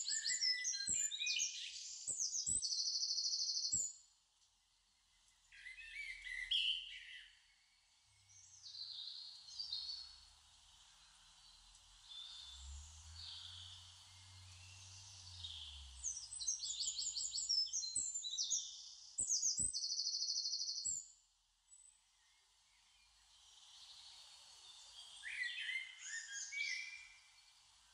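Small songbird singing in phrases of fast chirps and rapid trills, with short pauses between them.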